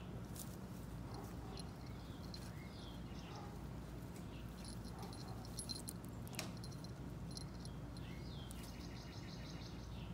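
Outdoor background sound: scattered high chirps, short falling whistles and a fast trill near the end from small wild creatures, over a steady low hum, with a couple of faint clicks.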